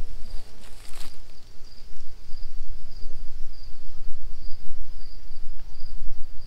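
An insect chirps in a high, even pulse about twice a second over a steady low rumble of wind on the microphone. There is one short noise about a second in.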